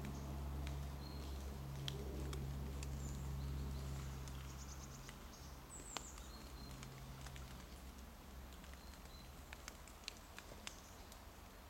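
Quiet woodland ambience: scattered crackles and rustles of dry fallen leaves under a small dog's paws, a few faint short bird calls, over a low steady rumble that fades about five seconds in.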